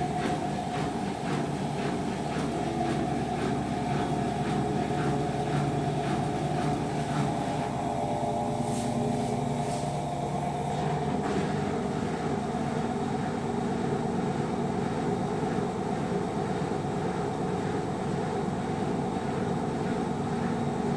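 Gorenje WaveActive washing machine running, a steady motor whine over a low rumble from the turning drum, with a faint regular ticking over the first several seconds.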